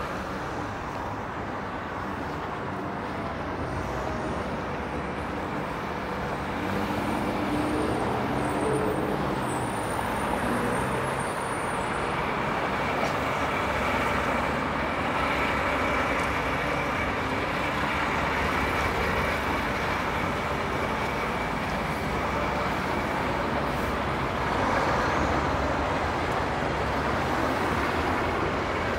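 City street traffic: buses and cars passing with their engines running, a steady road noise that grows louder about six seconds in.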